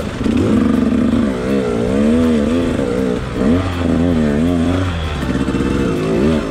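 KTM enduro dirt bike's engine under load riding through deep mud ruts, the revs rising and falling over and over as the rear wheel works for grip, with a brief drop in revs about three seconds in.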